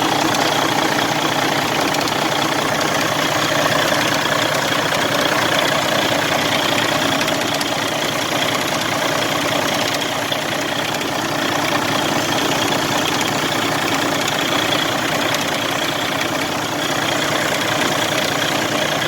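Heavy truck's diesel engine idling steadily, close by.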